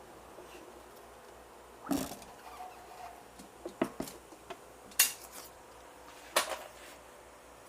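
Metal tools and parts being handled: several sharp metallic clanks and clinks a second or so apart, the loudest about five seconds in.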